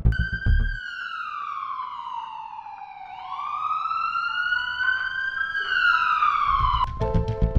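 Ambulance siren wailing: its pitch falls slowly for about three seconds, climbs back up, then starts falling again near the end. Background music with a heavy beat comes back in near the end.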